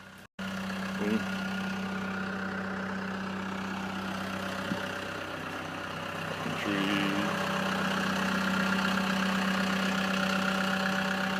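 Engine idling steadily with an even hum, getting a little louder a little past halfway.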